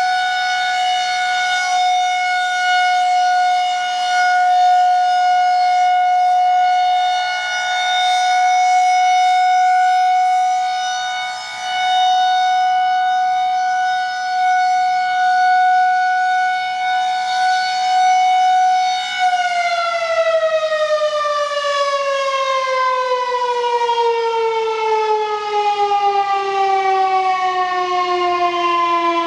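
Federal Signal 2001-130 rotating outdoor warning siren sounding a steady alert tone, its loudness swelling and fading as the head turns. About two-thirds of the way through, the tone begins a smooth, steady fall in pitch as the siren winds down.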